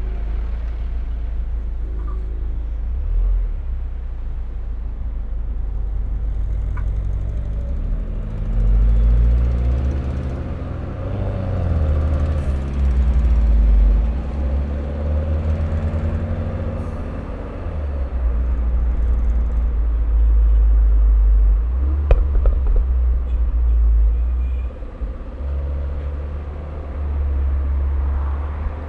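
Turbocharged Mini Cooper's engine and sport exhaust under way, revs climbing and dropping several times as it accelerates and eases off. A few sharp exhaust pops crackle about two-thirds of the way through.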